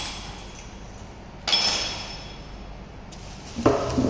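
A sharp clink with a short ringing tone that fades, about a second and a half in, then a duller knock, twice in quick succession, near the end.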